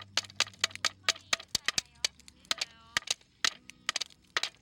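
Bonfire of burning wood crackling: sharp, irregular pops, several a second and varying in loudness.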